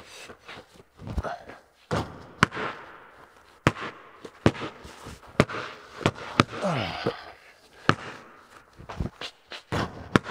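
Basketballs bouncing on a bare concrete floor and striking the backboard and rim: a string of sharp thumps at uneven intervals, echoing in a large hard-walled empty building.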